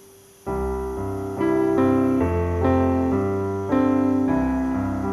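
Background piano music enters suddenly about half a second in: slow, sustained chords over a bass line, changing every half second to a second.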